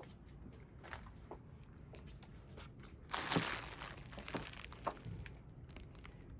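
Crinkling and rustling handling noise, with one louder rustle about three seconds in and scattered faint clicks.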